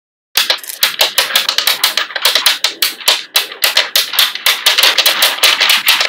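Small neodymium magnetic balls snapping and clicking together in a rapid run, about five or six sharp clicks a second, starting about a third of a second in.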